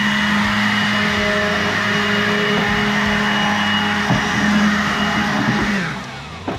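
Ryobi cordless leaf blower running at full speed with a steady whine and rush of air, blowing dirt off a truck cab's floor. About six seconds in it is let off and winds down with a falling pitch.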